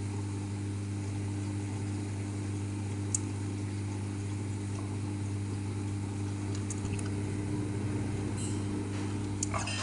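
Hotpoint Aquarius washing machine with a broken drum spider spinning: a steady low motor and drum hum at an even pitch, with a few light clicks.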